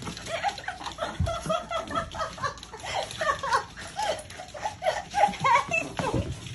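A woman laughing while corgi puppies whine and yip as they play and climb on her, with many short rising-and-falling calls.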